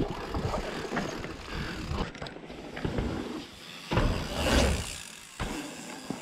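Mountain bike riding on a dirt trail: tyre noise with the bike's rattling and scattered clicks, and a louder rumble about four seconds in as a rider rolls across a wooden plank boardwalk.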